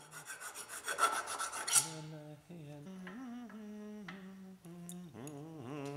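A hand file rasping back and forth along a steel shaft for about the first two seconds. Then a soft tune of held notes stepping up and down takes over.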